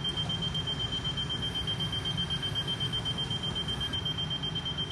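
A steady high alarm tone, typical of the Mooney M20J's landing gear warning horn, sounds over a loud low electric hum as the gear retracts during a gear swing.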